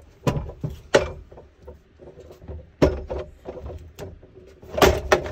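A removable van tabletop knocking and scraping as it is worked into the grooved rail along the counter edge: several sharp knocks, the loudest about a second in and near the end.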